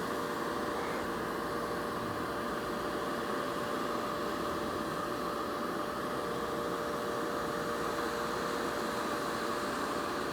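Bissell vacuum cleaner running steadily, its motor giving a constant whirring hum with a fixed whine.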